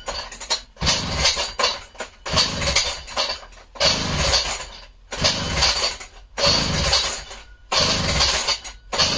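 McCulloch 1-72 two-stroke chainsaw being pull-started: the recoil starter cord is yanked over and over, about one pull every second and a half, each pull turning the engine over with a rattle, but it does not catch.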